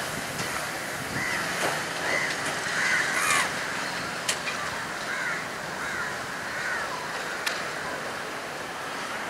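Crows cawing again and again, over the low, steady rumble of a slow-moving diesel locomotive. Two short sharp clicks sound, one near the middle and one toward the end.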